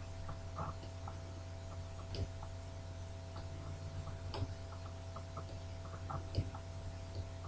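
Sparse, irregular light clicks from drawing strokes on a computer screen, over a steady low electrical hum.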